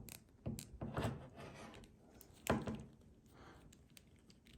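A few light knocks and clicks of hard plastic, about four in all with the loudest about two and a half seconds in, as an action figure and its accessory are handled.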